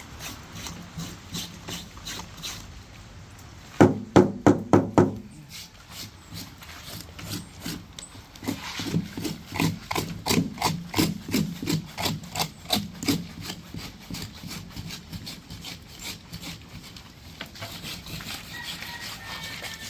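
A knife working on a large fish on a wooden surface: repeated scraping and cutting strokes, about three a second for a stretch in the middle, with a quick run of five loud knocks about four seconds in.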